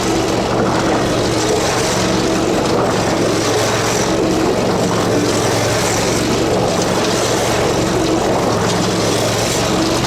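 Kohler engine of a Dixon zero-turn mower running steadily, with an even engine note and no changes in speed. It is running on newly fitted ignition coils and spark plugs.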